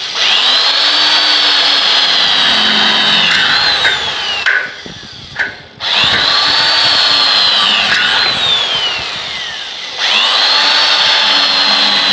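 Electric power drill run in three long bursts of about four seconds each, with a short break and two brief blips about halfway through. Each time, the motor whine rises as it spins up, holds steady, and falls away as the trigger is let go.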